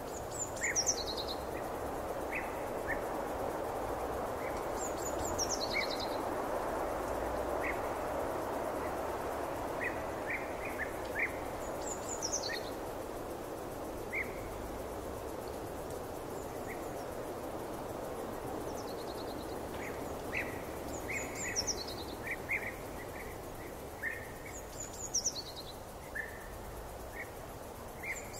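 Forest ambience: a steady hiss of background noise with birds singing. One bird repeats a short, high phrase that falls in pitch, about six times, and short chirps sound between its phrases.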